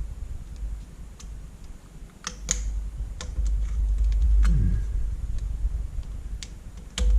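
Irregular sharp clicks and taps as the metal frame of a small LCD module is worked loose from its clips by hand, over a low rumble of handling.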